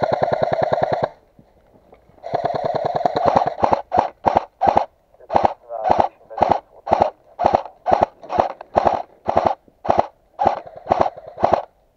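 Airsoft gun firing on full auto: a rapid burst of about a second, a longer one starting about two seconds in, then a string of short rapid bursts, two to three a second, until near the end.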